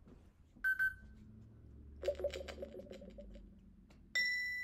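Electronic lie detector toy game processing an answer: a short beep, then a rapid run of pulsing electronic blips. About four seconds in comes a bright chime that rings on and slowly fades as its green light shows the answer read as true.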